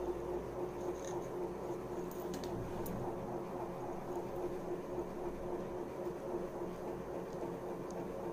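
Steady background hum with a few faint ticks.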